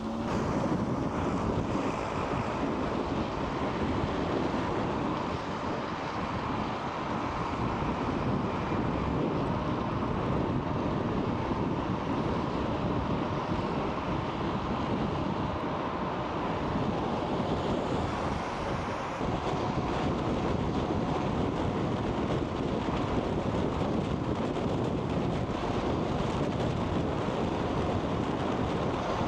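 Steady wind rushing over the microphone while riding an Inmotion RS electric scooter, with rolling noise from the ride underneath.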